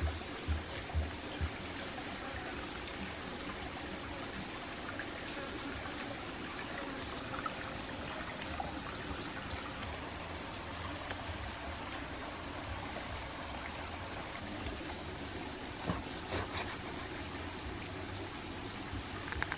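Steady trickling of flowing stream water, with a steady high-pitched tone alongside. A few soft low knocks in the first second and a half, and a knife cutting into raw pork near the end.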